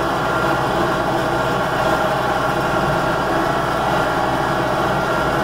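Farm tractor engine running steadily as the tractor drives across pasture.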